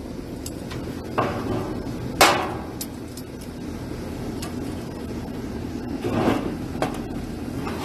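Sharp metal clanks and clinks from tongs knocking against a smoker's steel grate and an aluminum pan as a brisket is lifted and moved. The loudest clank comes about two seconds in, and two more follow around six and seven seconds, over a steady background hiss.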